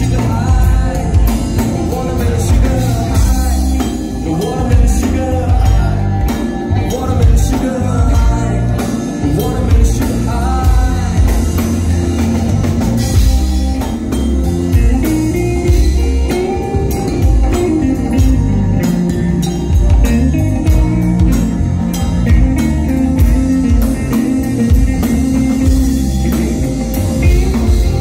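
Live pop band playing: a singer over electric guitar, bass guitar, keyboards and drum kit with a steady beat. The vocal line is mostly in the first half, with the instruments carrying the rest.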